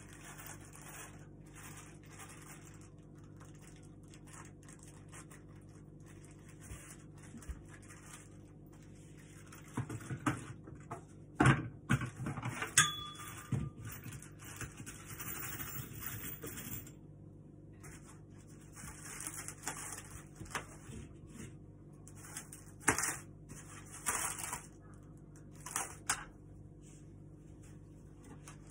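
Unpacking of flat-pack furniture parts: plastic wrapping rustling, with scattered knocks and clatters that come in clusters, loudest about eleven to thirteen seconds in, and small metal screws and fittings clinking onto a tabletop. A steady low hum runs underneath.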